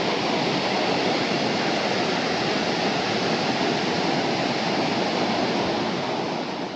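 Kintampo Waterfalls on the Pumpum River: water pouring over the rocks in a steady rush that eases slightly near the end.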